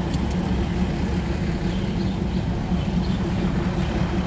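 Steady low engine hum of a train idling at the station platform.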